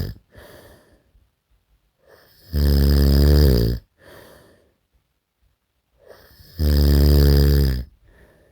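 Snoring: two loud, deep, rattling snores about four seconds apart, each lasting about a second, with softer breathing between them.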